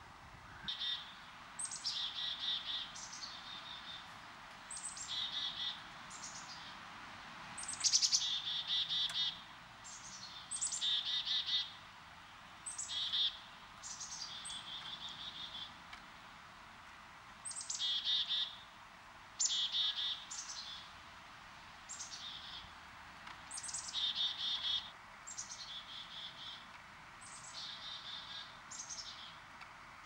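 A songbird sings the same short phrase over and over at uneven gaps, roughly every one to three seconds. Each phrase is a sharp high note sliding down into a quick trill.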